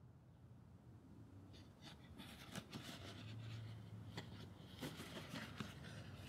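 Cardboard light bulb box being opened by hand: faint papery rustling and crisp little clicks as the flaps and inner sleeve are pulled open. The rustling starts about a second and a half in.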